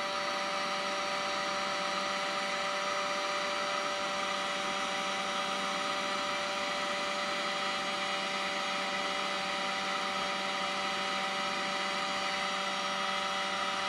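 Heat gun blowing steadily, heating a lead slide sinker held over its nozzle: an even rush of air with a steady motor whine.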